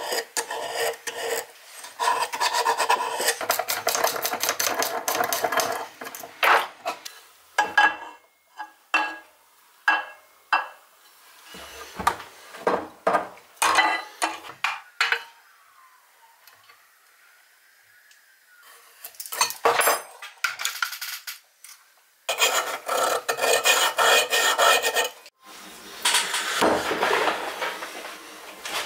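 Hand-tool work on metal parts at a workbench: long spells of scraping and rasping, with scattered clicks and knocks of parts and tools being handled in between.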